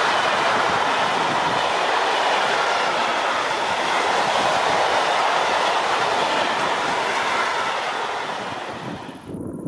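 Freight wagons loaded with concrete sleepers rolling past on the track, a loud, steady noise of steel wheels on rails. It fades and cuts off sharply near the end.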